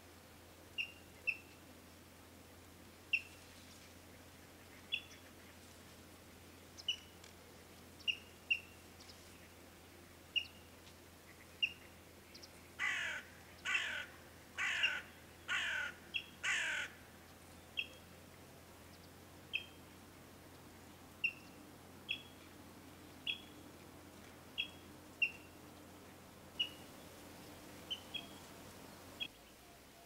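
Yellow-billed kingfisher calling: short, sharp high notes every second or two, and about halfway through a run of five louder, longer calls made of quick falling notes.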